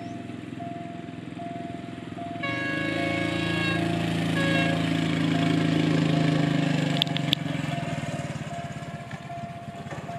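An approaching diesel locomotive sounds its horn twice, a long blast about two and a half seconds in and a short one a second later, over a low engine rumble that grows louder and then eases. A level-crossing warning beeps in an even rhythm about twice a second, and two sharp clicks come about seven seconds in.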